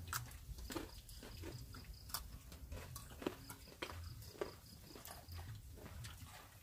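A group eating rice with their hands from banana leaves: quiet, irregular smacks and clicks of chewing and of fingers in the food.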